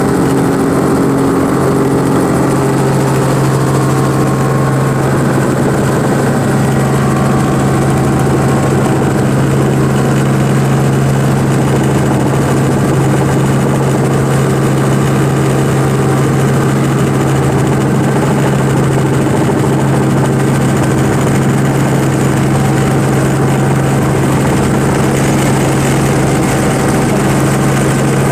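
Robinson R44 helicopter's six-cylinder piston engine and rotors running steadily, heard from inside the cabin as a loud, constant low hum with steady overtones, through the descent and touchdown on grass.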